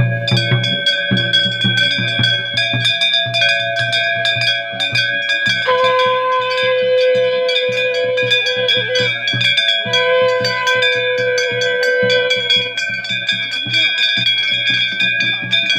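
Bells ringing on and on over a fast, steady drum beat, with a long held lower tone sounding twice, about six and ten seconds in, as at a temple ceremony.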